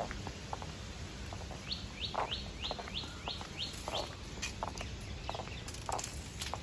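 Birds calling: a run of about eight quick rising chirps in the first half, with short lower calls scattered throughout.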